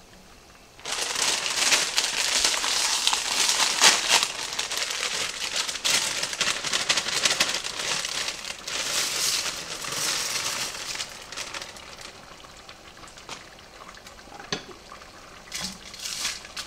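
Plastic bag of dry egg noodles crinkling and rustling as the noodles are shaken out into a pot of boiling broth, starting about a second in. After about ten seconds it gives way to quieter stirring with a wooden spoon and a few light knocks against the pot.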